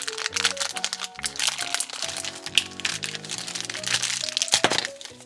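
Background music with a light melody, over crinkling and sharp clicks from small plastic toy parts and their wrapping being handled, with one louder click about four and a half seconds in.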